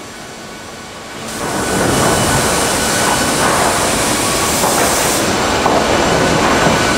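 LINCK timber profiling line running: squared timber feeding through its chipping heads and circular saws. The sound is quieter for about the first second, then becomes a loud, steady, dense mechanical din.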